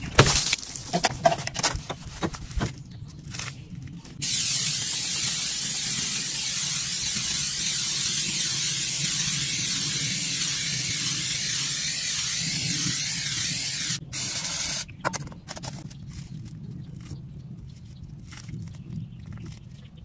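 Aerosol spray paint can hissing: several short bursts for the first few seconds, then one long steady spray of about ten seconds, broken off briefly and ending about fifteen seconds in. After that come quieter, scattered rubbing sounds as a sponge wipes over the painted door.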